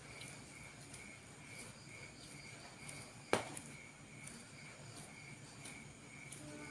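Faint, evenly repeating chirping of a cricket, about two to three chirps a second, over a low steady hum. A single sharp click about three seconds in.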